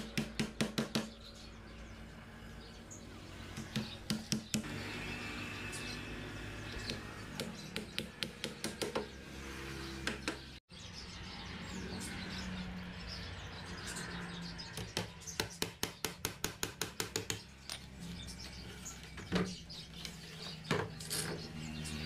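Hammer driving nails into a wooden bird-cage frame: several runs of quick, light strikes, several a second, with pauses between the runs.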